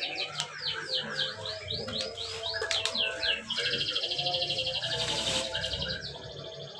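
A bird chirping: a run of short, high, downward-sliding calls about three a second, breaking into a fast trill midway before the chirps resume. Soft background music plays underneath.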